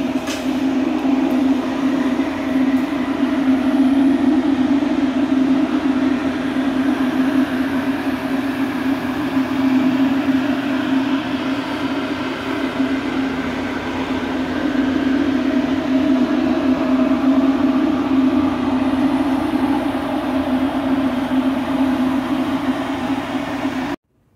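Shop machinery running with a steady droning hum, then cutting off abruptly near the end.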